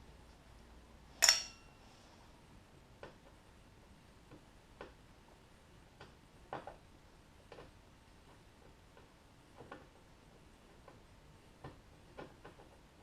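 A sharp metallic clink with a short ring about a second in, then scattered light clicks and taps of hand tools and screws as a car door panel's fasteners are worked loose.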